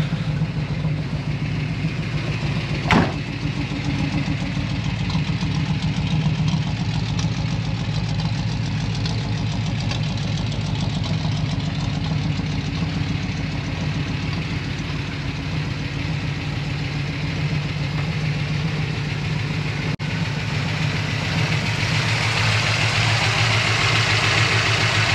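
Chevrolet 350 V8 with headers and dual exhaust idling steadily, with a short sharp noise about three seconds in; it grows louder and brighter in the last few seconds. A slight lifter noise is heard from the driver's side of the engine.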